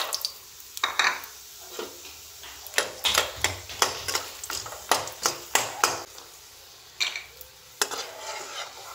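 Dried lentil dumplings (dal bori) sizzling in hot oil in a wok while a steel spoon stirs them, with repeated clinks and scrapes of the spoon on the pan, thickest in the middle.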